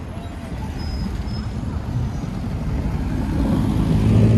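City street traffic: a tram passing and the rumble of motor vehicles. A low engine hum grows louder near the end.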